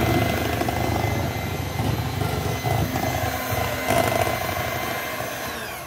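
Electric hand mixer running steadily, its beaters whirring through a brown sugar cookie-dough mixture in a glass bowl, then winding down near the end as it is switched off.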